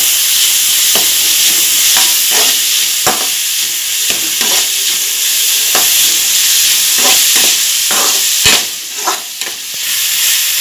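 Chopped carrot and onion frying in oil in a metal kadai as they are stirred: a steady sizzle, with the stirring utensil scraping and clicking against the pan once or twice a second.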